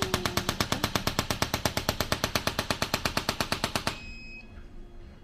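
Impulse IQ chiropractic adjusting instrument firing a rapid, even series of sharp clicking impulses, which stops about four seconds in.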